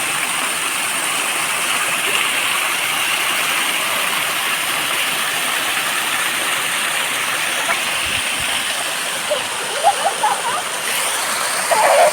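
Steady rushing of water falling over a small waterfall and running on as a stream.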